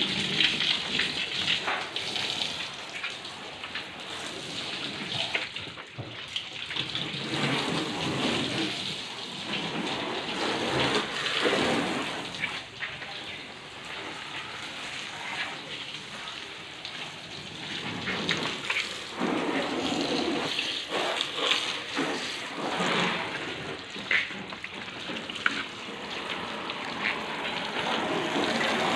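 Water from a hose spraying onto a car's body and windows, a rain-like hiss that swells and fades in loudness every few seconds.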